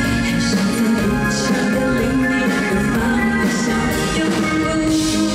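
Live pop band playing a ballad with drums and guitar while a woman sings into a microphone over it.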